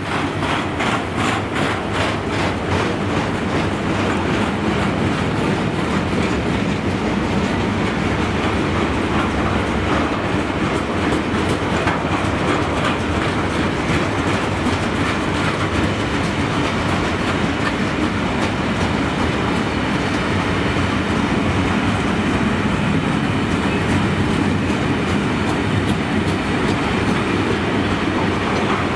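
Freight wagons loaded with steel coils rolling past at speed: a steady rumble with a rapid, regular clatter of wheels over the track, most distinct in the first few seconds.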